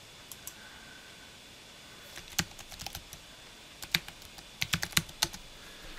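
Typing on a computer keyboard: a short run of irregular key clicks starting about two seconds in, with a quick flurry near the end, as a password is entered.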